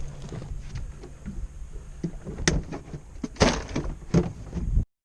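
A few sharp knocks and bumps in a fishing boat over a low steady hum and rumble, the loudest about three and a half seconds in; the sound cuts off suddenly near the end.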